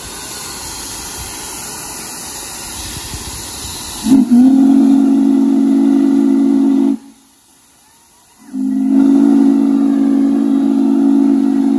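Steam locomotive letting off a steady hiss of steam, then sounding its steam whistle: two long blasts of about three seconds each, a low whistle of several tones at once, each cutting off sharply.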